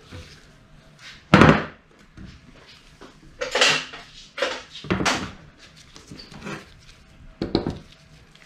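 A Bosch car starter motor being turned over by hand and set down on a metal plate: several metallic knocks and clatters, the loudest about a second and a half in.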